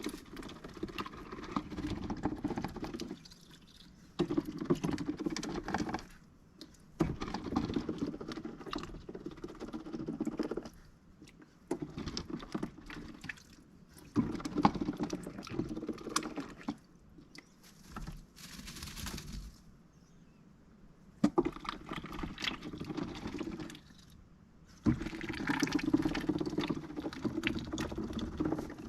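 Rescued mallard duck moving about in its enclosure: bursts of rustling and fine pattering clicks, each one to four seconds long, with short quiet gaps between them.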